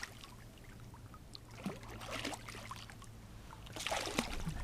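Light water splashing in two short bursts about two seconds apart, over a faint steady low hum.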